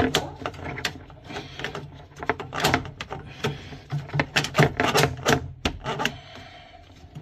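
Steel drain snake cable being worked down a PVC kitchen sink drain pipe to clear a blockage: irregular scraping and rubbing, with many sharp clicks and knocks of the cable against the pipe.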